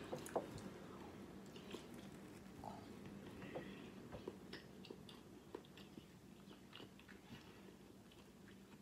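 Faint chewing of a hard-boiled egg, with soft scattered mouth clicks.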